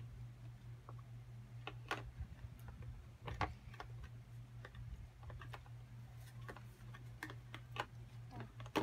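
Plastic spoon clicking and scraping against a clear plastic tub as slime is stirred, in small irregular clicks, over a steady low hum.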